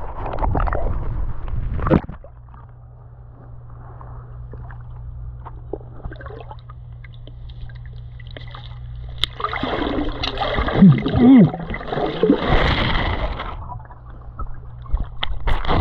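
Pool water splashing around the camera, then a muffled stretch with a steady low hum, as heard with the microphone underwater. About nine seconds in comes a louder stretch of muffled water noise lasting a few seconds, and splashing picks up again at the very end.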